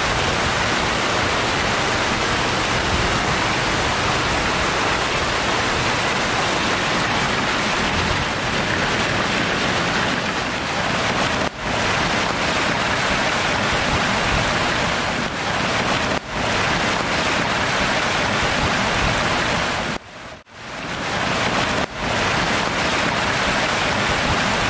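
Heavy thunderstorm rain pouring down, a steady dense hiss. It drops away briefly a few times, most deeply about twenty seconds in.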